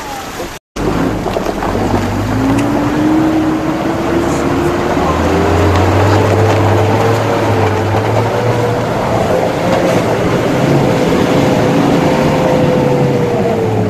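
SUV engine running under load as the vehicle creeps along a snowy off-road track, with a whine that slowly rises in pitch and then holds steady. It starts after a brief dropout about a second in.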